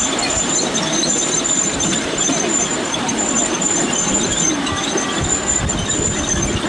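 Miniature railway train running along its track, a steady rumble of wheels on rail heard from aboard, with a thin high wheel squeal that keeps coming and going.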